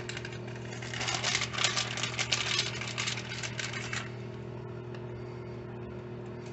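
Crinkly rustling as shredded mozzarella is handled for topping a pizza, from about a second in until about four seconds in. A steady low electrical hum runs underneath.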